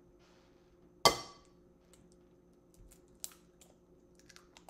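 An egg cracked with one sharp rap about a second in, then a few lighter clicks and crackles of the shell as it is pulled apart.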